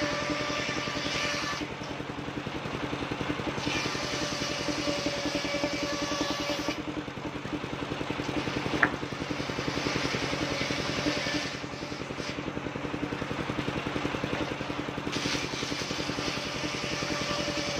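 Engine-driven circular saw of a mobile sawmill running steadily as wooden boards are fed through the blade. Its ringing, higher part drops out and returns a few times. One sharp knock comes about nine seconds in.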